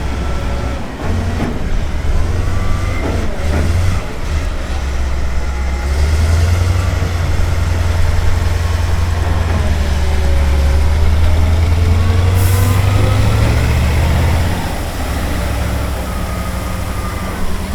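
Heavy diesel engine of an M3 amphibious bridging vehicle running with a steady low rumble. It grows louder about a third of the way in and drops back near the end. Faint whines shift in pitch above it.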